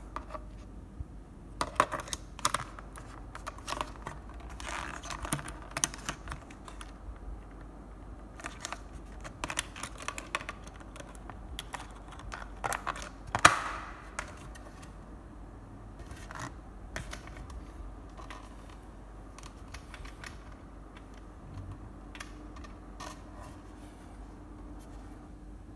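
Plastic clicks and knocks from handling a plastic wall clock while a battery is pushed into its quartz movement. The clicks come at irregular intervals, with one louder snap about halfway through and fewer clicks near the end.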